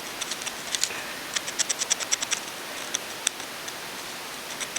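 Steel screwdriver tip scraping and clicking against a motorcycle roller chain's master link, picking grime off the link: a string of short, sharp metallic clicks, with a quick run of them about a second and a half in.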